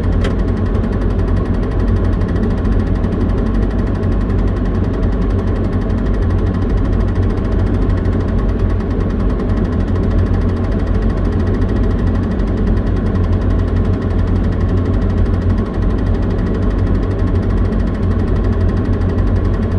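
Liebherr LTM 1250-5.1 mobile crane's diesel engine running steadily, a deep, even drone heard from inside the crane cab while the crane holds its load.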